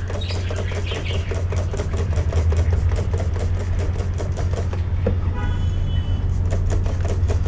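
An engine running steadily at idle, with a low hum and a fast, even ticking of about six or seven beats a second. A brief high-pitched tone sounds a little past halfway.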